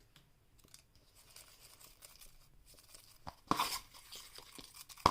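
Light rustling and crinkling of a color slip being drawn from a bowl and handled open, with a louder crinkle about three and a half seconds in.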